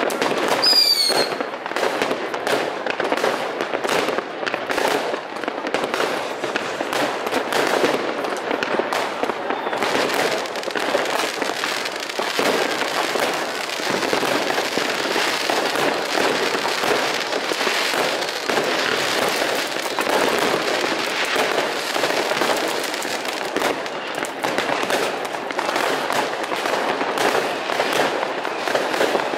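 Many fireworks going off at once: a dense, continuous barrage of bangs and crackling from rockets and firecrackers, with a falling whistle from a rocket about a second in.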